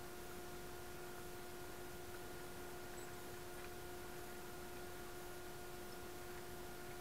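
Faint steady electrical whine, one tone with its overtones, over a low hiss, with a few very faint ticks.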